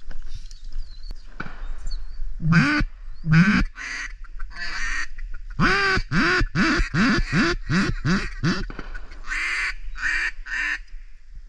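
Mallard-style duck quacking: two single quacks, then a quick run of about eight quacks, then a few more near the end.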